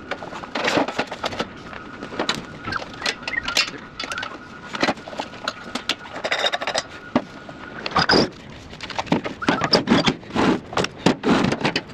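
Clanks, clicks and scrapes of metal parts being handled and fitted onto a welding cart, in quick irregular knocks.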